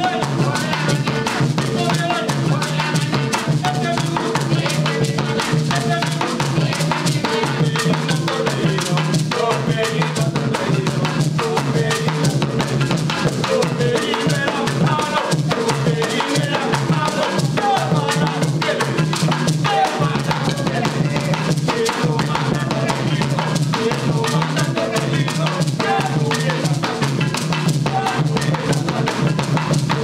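Afro-Esmeraldeño marimba music: a marimba struck with mallets, playing repeating melodic figures over steady drumming.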